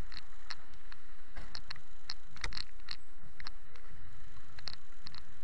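Mondial Zone 150 motorcycle running on the move, heard as a steady low rumble of engine and wind on the bike-mounted microphone, with irregular sharp clicks and ticks throughout.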